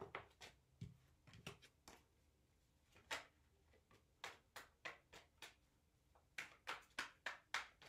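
Tarot cards being shuffled and dealt by hand: faint, soft card flicks and taps in irregular clusters, with a quicker run of them near the end.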